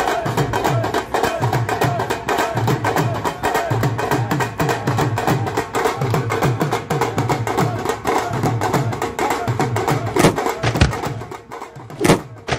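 Fast, steady wedding-procession drumming on a strap-hung drum. The drumming drops away near the end, where a couple of heavy thuds come as a man is knocked to the ground.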